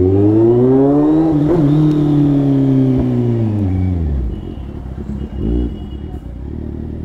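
Kawasaki inline-four motorcycle engine pulling under throttle, its pitch rising over the first second and a half, then falling as the throttle closes about three to four seconds in, easing to a quieter low running note.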